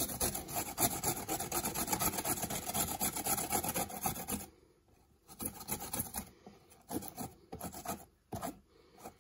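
Fresh ginger root grated by hand on a stainless steel grater plate: fast, continuous grating strokes for about four and a half seconds, then a few slower, fainter strokes.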